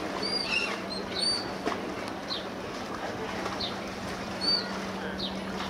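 Small birds chirping: short high chirps, some arched and some falling, about one a second, over a steady low hum.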